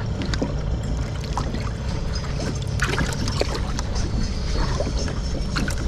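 Water splashing and sloshing in a plastic live-bait tank as a hand chases the bait fish, with many small splashes and drips over a steady low hum.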